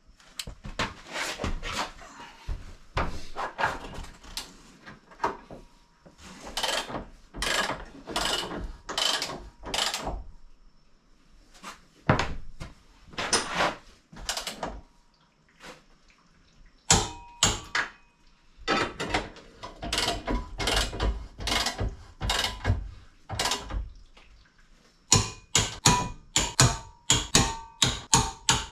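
Ratchet of a click-type torque wrench clicking in bursts as the tow-hitch mounting bolts are tightened toward 108 N·m, with a faster run of metallic clicks, about four a second, near the end.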